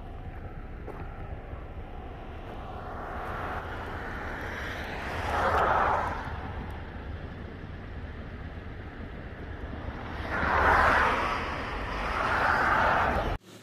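Cars passing on the road: one swells up and fades about five seconds in, and two more go by near the end, over a steady low rumble.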